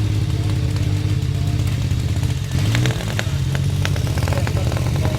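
Vintage motorcycle engine running at idle, with a brief rise in pitch from a throttle blip about halfway through and a few sharp clicks after it.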